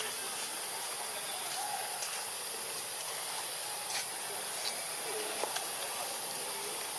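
Steady high-pitched hiss, with a few faint clicks and short faint chirps underneath.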